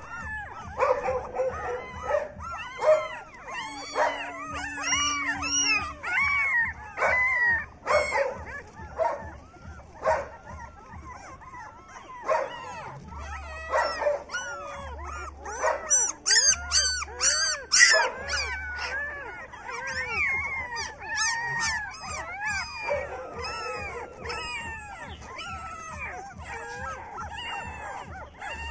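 A litter of young German Shepherd puppies whining and crying: many short, high cries that rise and fall, overlapping one after another, with a louder cluster about two-thirds of the way through.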